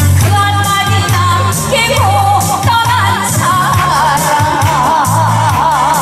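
A woman singing a Korean trot song into a handheld microphone over a backing track with a steady beat; about halfway through she holds one long note with heavy vibrato.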